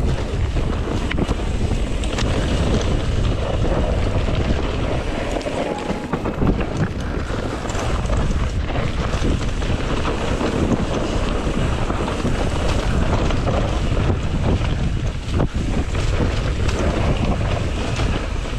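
Wind buffeting the microphone of a camera on a mountain bike descending a dirt singletrack at speed, a steady rumble, with tyre noise on the loose dirt and frequent small knocks and rattles as the bike runs over bumps.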